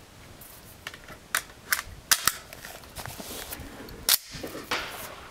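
Rifle gunfire: a run of sharp cracks, several in quick succession about one and a half to two and a half seconds in, then another strong crack with a trailing echo about four seconds in.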